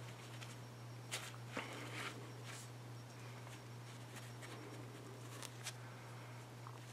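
A few faint clicks and light handling noises from a stainless-steel multi-tool being handled, over a steady low hum.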